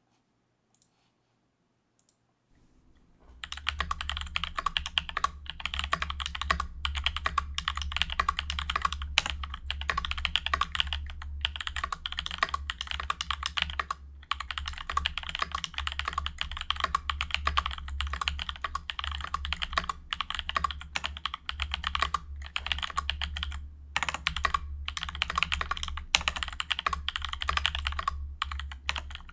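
Fast, continuous typing on a Discipline65 mechanical keyboard with lubed NovelKeys Blueberry tactile switches, a POM plate and PBT keycaps, in a high-profile acrylic and POM case with no desk mat under it. It starts about three seconds in and runs with brief pauses.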